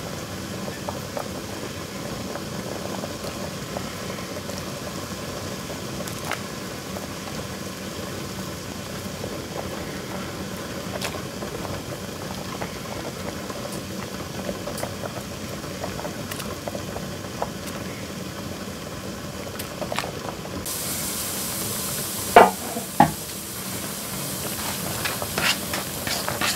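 A pot of broth at a rolling boil on a portable butane burner, bubbling and hissing steadily as hand-torn pieces of carrot sujebi dough are dropped in. A brighter hiss comes in about 21 seconds in, and two sharp knocks follow about a second later.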